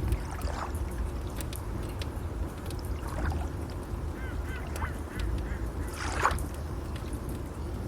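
Layered nature ambience: a steady low rush of waves under fire crackles, with several short bird calls, the loudest about six seconds in.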